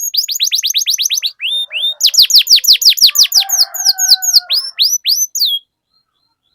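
Domestic canary singing a long rolling song ('ngerol'): fast trills of repeated downward-sweeping notes, about ten a second, changing from one trill to the next. A couple of steady, lower held notes come in midway. The song cuts off about a second before the end.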